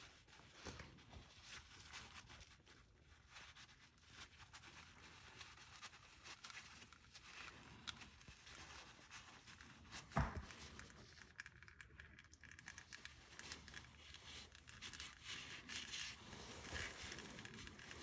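Faint rustling and small handling noises as gunk is cleaned off a part, with one sharp click about ten seconds in.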